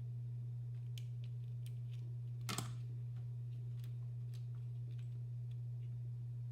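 Steady low hum with scattered light clicks and taps, one louder click about two and a half seconds in.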